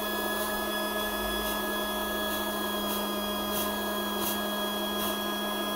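Homemade fog machine running: its small air blower and fluid pump give a steady electric hum, with faint soft ticks roughly once a second.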